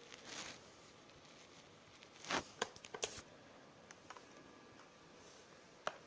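Quiet room tone with a few faint, sharp computer-mouse clicks: a cluster between two and three seconds in and one more near the end, with a short puff of noise just before the cluster.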